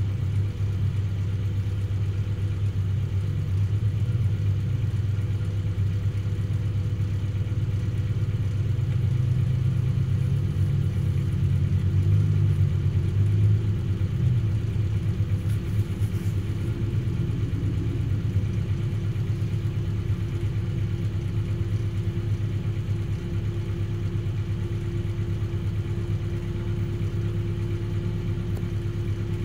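Vehicle engine idling steadily, heard from inside the cab, while it warms up after a cold start; it runs a little louder for a few seconds about halfway through, and a faint steady hum grows stronger near the end.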